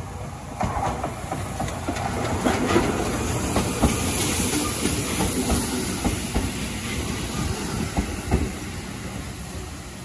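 Gakunan Railway electric train passing at close range. Its rumble builds to a peak a few seconds in and then fades as it moves away. The wheels give a few sharp clacks over the rail joints.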